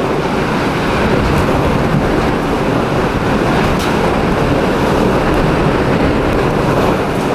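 Hurricane-force wind blowing in a loud, steady rush, driving sheets of rain, and buffeting the microphone. A few faint clicks sound through it.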